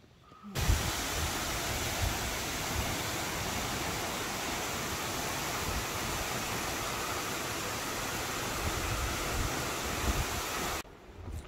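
Steady rushing of a tall waterfall plunging down a rock face, with low wind rumble on the microphone. It cuts in abruptly about half a second in and stops abruptly near the end.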